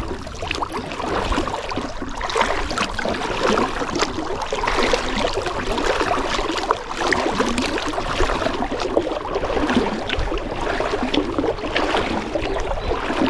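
Kayak being paddled across a lake: a steady wash of splashing and trickling water from the paddle strokes, with many small sudden splashes and drips.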